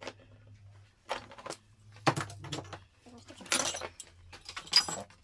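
Metal engine parts of a Yamaha PW80 crankcase being handled on a bench: a few short metallic clinks and rattles, with a longer scraping rattle about three and a half seconds in.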